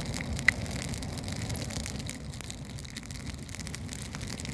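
Campfire of spruce branches crackling, with burning resin popping sharply once about half a second in, over a low steady rumble.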